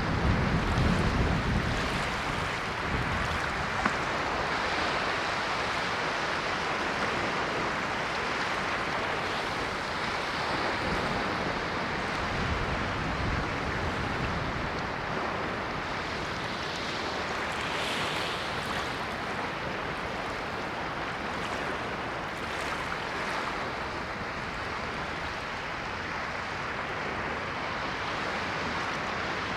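Ocean waves washing onto the shore, a steady hiss of surf with gentle swells; a heavier wave breaks near the start.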